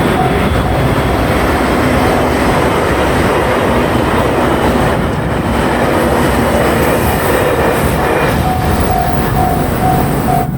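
JR Shikoku 8600 series limited express electric train passing over a level crossing: a loud, steady rush of wheels on rail. The crossing's warning bell rings in a repeated ding, heard at the very start and again over the last two seconds.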